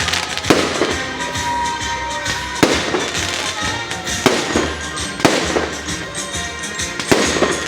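Fireworks display: aerial shells bursting in sharp bangs every second or two, about six in all, two of them close together near the end, with music playing underneath.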